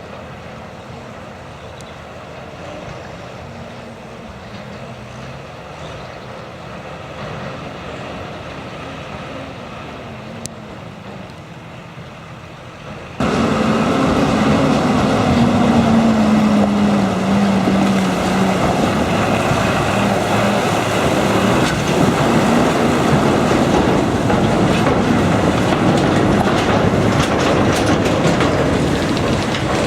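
Heavy farm machinery running during a maize silage harvest: diesel engines of tractors and a forage harvester. It is steady and moderate at first, then abruptly much louder about thirteen seconds in, with an engine note falling in pitch just after.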